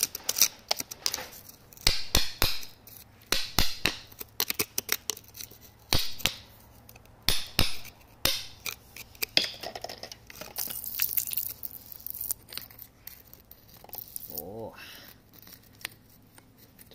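Metal pick scraping and prying at gritty soil and pebbles around an embedded agate nodule: a run of sharp scrapes and clicks of metal on grit and stone. A hissing stretch comes about ten seconds in, and a short tone rises and falls near the end.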